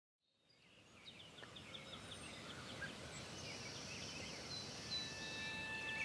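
Outdoor ambience fading in from silence: many birds chirping and trilling over a soft hiss. A steady held note enters near the end.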